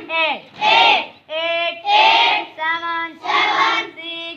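Schoolchildren chanting the exercise counts in unison during PT drill: a rhythmic string of short shouted calls, about seven of them, each number called twice.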